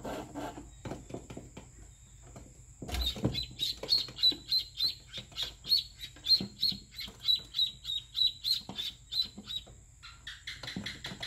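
Baby birds, a duckling and a quail chick, peeping: a fast run of loud, high peeps, two or three a second, that starts with a thump and scramble about three seconds in and gives way to softer, lower chirps near the end.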